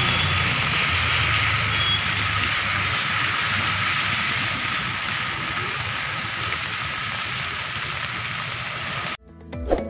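Steady hiss of rain on a flooded street, with a low vehicle rumble underneath that fades over the first few seconds. Cuts off abruptly near the end into music.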